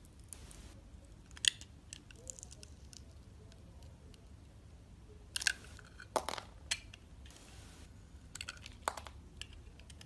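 Bar of soap being cut and shaved with a snap-off utility knife blade: scattered sharp, crunchy crackles and clicks as the blade cuts through, with short soft scraping between them.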